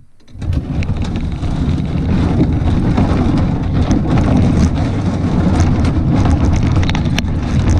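Wind buffeting the microphone: a loud, steady low rumble with scattered faint crackles.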